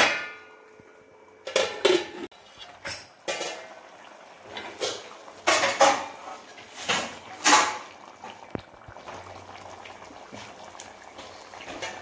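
Wooden spatula stirring sardine curry in an aluminium pot, knocking and scraping against the pot in a series of uneven strokes. A ringing metal clank comes right at the start.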